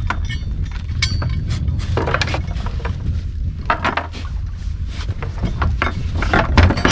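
Metal anchor chain clinking and a small folding grapnel anchor knocking as they are hauled aboard by hand, in a series of short irregular clinks over a steady low rumble.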